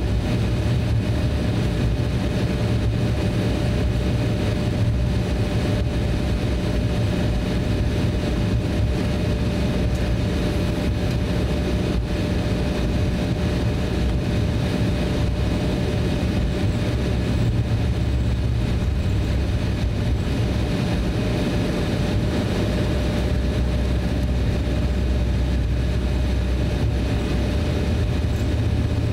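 Cabin noise of an Embraer E170 taxiing: a steady low rumble from its turbofan engines running near idle, with a faint steady tone above it.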